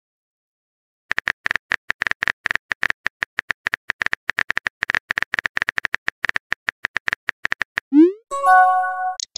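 Rapid simulated keyboard typing clicks from a chat app as a message is typed. These are followed by a short rising swoosh and a brief chime of several tones as the message is sent.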